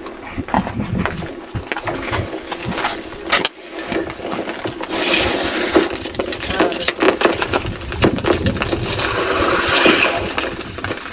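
Lake ice under pressure cracking and breaking: a run of sharp cracks and snaps, with bursts of tinkling, crushing ice shards about five seconds in and again near the end. The pressure in the frozen lake is forcing the ice plates up against one another.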